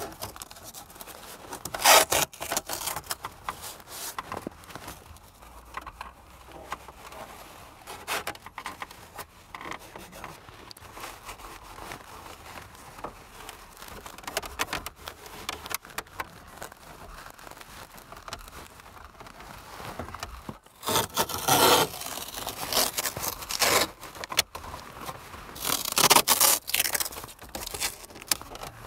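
Masking tape being pulled off the roll in noisy ripping strips, once a couple of seconds in and several times near the end. Between the strips a cloth rubs and scrapes over the plastic dashboard.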